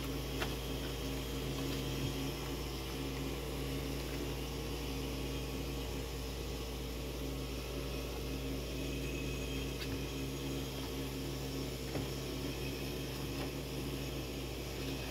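Steady low mechanical hum of the room, with a few faint clicks of plastic trim and wire being handled.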